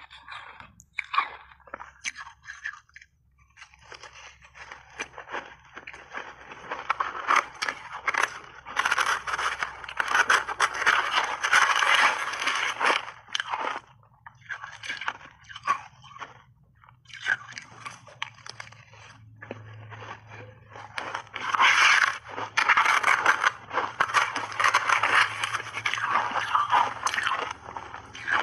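Close-miked crunching and chewing of big mouthfuls of shaved ice coated in milk powder: dense crackling made of many tiny cracks, in two long spells with a lull about halfway through.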